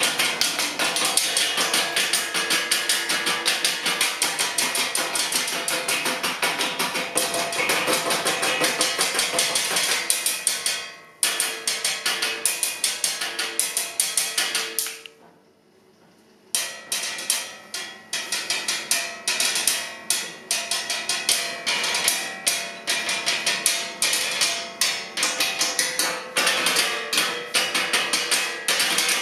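A wooden tabletop struck with sticks as a percussion instrument, a fast, dense run of sharp knocks in rhythm. Midway through the knocking stops for about a second and a half, then starts again.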